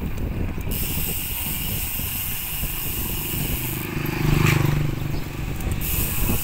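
Wind buffeting the microphone and tyre rumble of a bicycle riding on concrete. About four seconds in, a low hum swells for about a second.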